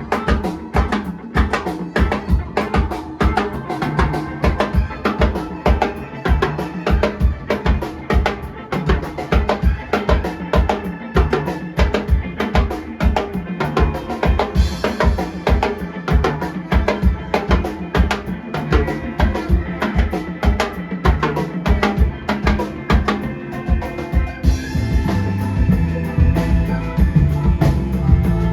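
Live band playing a steady, driving drum-kit groove with bass and melodic instruments over it. A heavier bass line swells in near the end.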